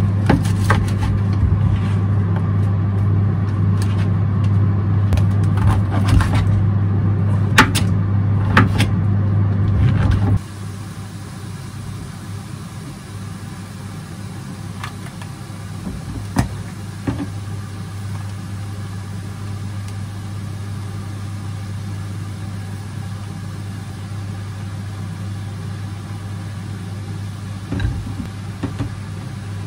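Knife chopping enoki mushrooms on a plastic cutting board, a run of sharp knocks over a steady low hum. About ten seconds in the level drops suddenly, leaving a quieter hum with a few scattered taps and clinks of a spoon and bowl as a sauce is mixed, and a low thump near the end.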